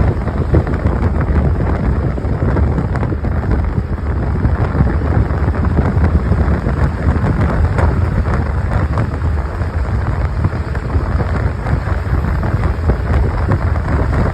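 Wind buffeting the microphone: a loud, steady, fluttering rumble with no pauses.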